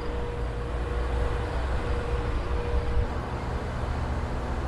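Steady low drone of a running engine, with a thin steady tone above it that stops about three seconds in.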